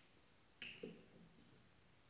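Near silence, with two faint short knocks about half a second in: soap bottles being handled while mixing slime.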